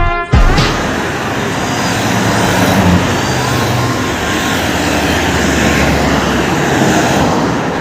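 Road traffic: a heavy vehicle's engine and tyre noise passing close by, the engine hum strongest around the middle and fading after about six seconds.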